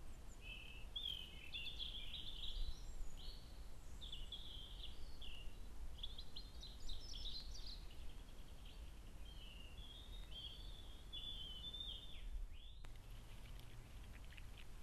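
A songbird singing a long run of varied, quick phrases over a steady low background noise. The song stops abruptly near the end, where the sound cuts to a different, quieter background with a faint hum and faint ticking.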